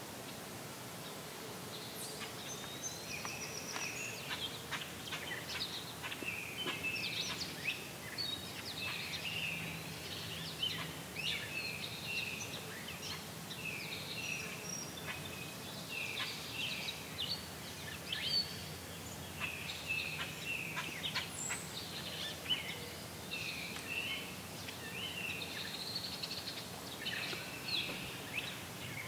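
Birds singing: a steady run of short chirping phrases, about one a second, with hardly a break.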